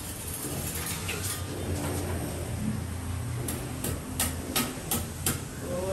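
Sponge wiping grout haze off glazed wall tiles, over a steady low hum, with a quick run of about six sharp clicks and knocks a little past the middle.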